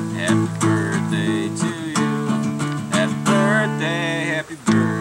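Acoustic guitar being strummed: a run of chords with sharp strokes, a short break near the end, then a loud strum.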